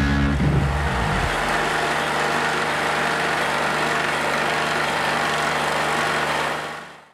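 Tracked stump grinder running, its cutting wheel grinding into a large fir stump: a steady engine tone under dense grinding noise, fading out near the end.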